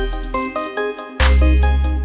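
Electronic background music with a melodic synth line, deep bass and a steady beat; the bass drops out for about half a second near the middle.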